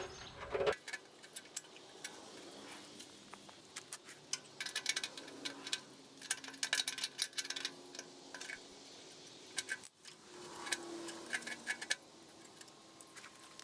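Sped-up metal clicks and clinks in quick clusters as the choke cable's nut and washer are fitted and tightened behind a tractor's dash, played back at four times speed.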